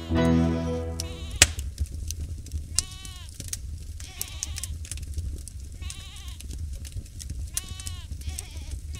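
Goats bleating: several short, wavering calls from about three seconds in, over a steady low hum. A song fades out in the first second, and there is a single sharp click about a second and a half in.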